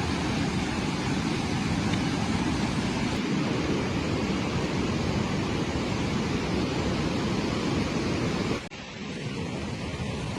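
Steady rushing noise with no distinct events, cutting off abruptly near the end and resuming a little quieter.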